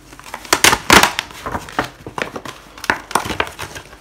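Plastic crinkling and rustling with irregular clicks: a laptop hard-drive caddy and its packaging being handled, the loudest crackles about a second in.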